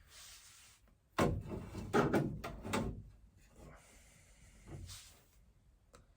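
Handling knocks and clatter: a sharp knock about a second in, then a louder run of knocks and rattles around two seconds in, and a softer one near five seconds.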